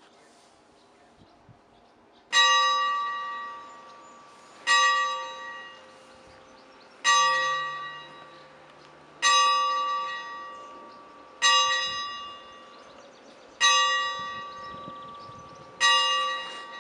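A single bell struck seven times at an even pace, about one strike every two seconds, the first about two seconds in. Each strike rings at the same pitch and fades before the next.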